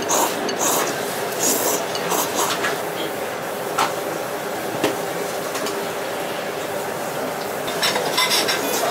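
A person slurping ramen noodles in short, hissy pulls, several in the first two and a half seconds and again near the end, over steady restaurant background noise. There are a couple of light clicks of bowl or utensils in the middle.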